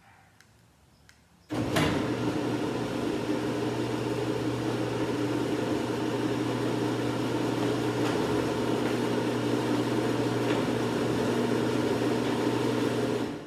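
1997 Chamberlain LiftMaster screw-drive garage door opener starting about a second and a half in and running steadily for about twelve seconds with a loud motor hum, then stopping. It is driving the door through a newly replaced motor-to-screw coupling.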